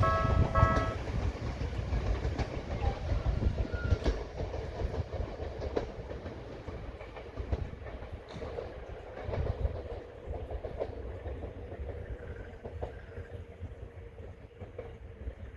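Bessho Line 1000-series two-car electric train running away past the level crossing, its wheels clacking over rail joints and the rumble fading. The crossing's repeating warning tones stop about a second in.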